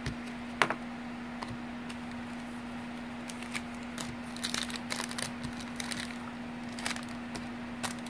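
Baseball trading cards being handled and flipped through by hand: small scattered clicks and soft rustles, busiest in the middle, over a steady low hum.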